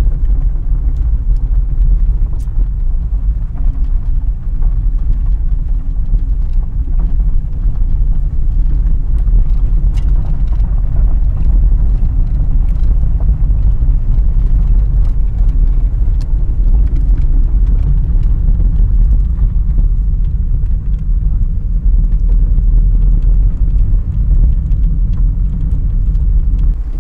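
A car being driven, heard from inside the cabin: a loud, steady low rumble of engine and road noise with scattered small ticks and rattles.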